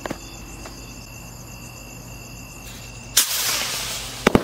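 A Diwali rocket carrying a sutli bomb ignites about three seconds in and takes off with a sudden loud rushing hiss, with two sharp cracks near the end. Crickets chirp steadily before the launch.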